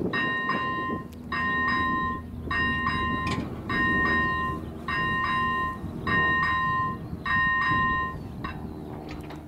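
Electronic warning bell of an AŽD 97 level crossing ringing in a steady repeating pulse, about once every 1.2 seconds, and falling silent near the end. A train runs past under it as a steady rumble that carries on after the bell stops.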